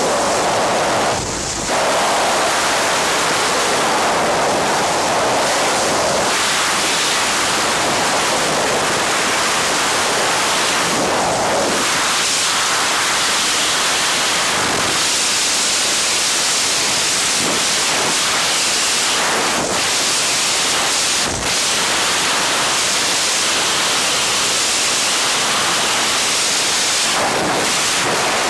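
Loud, steady rush of freefall wind over the camera's microphone, dipping briefly about a second in.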